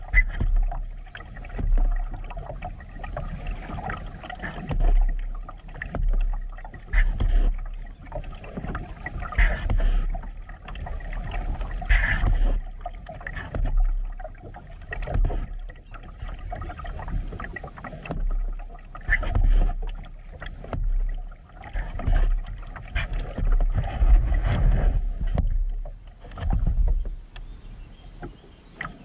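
Kayak being paddled: paddle strokes dipping and splashing in the water in a steady rhythm about every two seconds, with a low rumble underneath.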